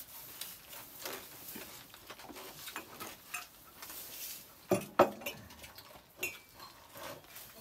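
Spoons scraping and tapping on disposable plastic plates as people eat, with two sharp knocks close together about five seconds in and a lighter one a second later.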